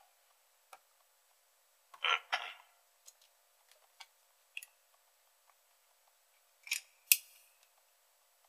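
Hard plastic parts being handled, most likely the shaver and its charger being picked up: scattered small clicks, a short rattle about two seconds in, and two sharp clicks about seven seconds in.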